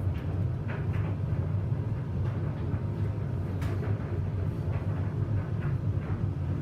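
Samsung washing machine running a 95°C boil-wash cycle: a steady low rumble of the turning drum, with a few faint brief knocks or splashes.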